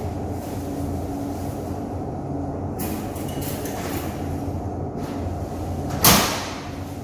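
Steel locker door shut with a single sharp metallic bang about six seconds in, over a steady low hum.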